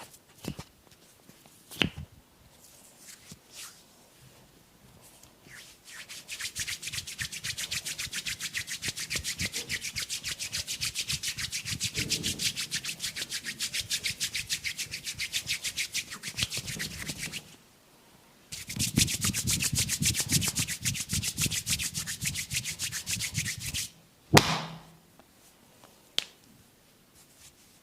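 Massage hands rubbing rapidly back and forth over skin in fast, even strokes, in two long runs with a brief pause between. A single sharp smack follows near the end.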